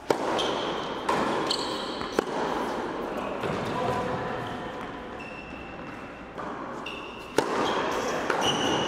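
Tennis ball struck with rackets during a point on an indoor hard court: a serve right at the start, hits about one and two seconds in, then a long gap and two more hits near the end, each crack ringing in the hall. Short high squeaks of tennis shoes on the court come between the hits.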